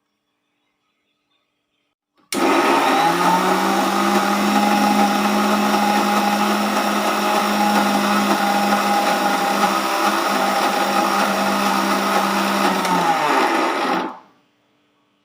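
Electric mixer grinder switched on about two seconds in, its motor spinning up into a loud, steady whirr. It runs for about eleven seconds, then is switched off and winds down.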